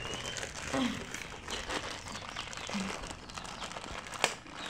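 Light crinkling and small clicks with a steady background hiss, and one sharp click about four seconds in.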